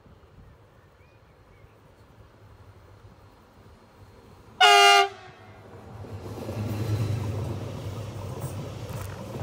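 A Stadler FLIRT electric multiple unit sounds one short horn blast about halfway through, then runs past close by with a rising low rumble of wheels on the rails.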